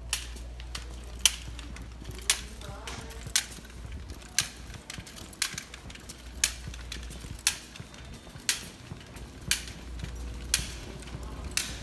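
Footsteps of people walking on a hard concrete floor: sharp heel clicks about once a second, with fainter steps between them, over a steady low hum.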